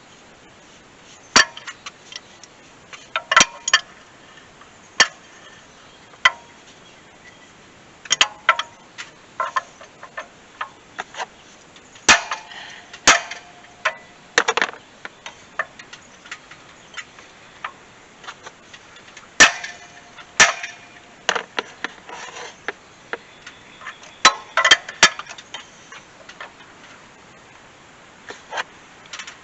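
Hand tools clinking and tapping on metal: irregular sharp clicks and knocks, a few with a short metallic ring, in clusters with pauses between, while working on a stuck water pump.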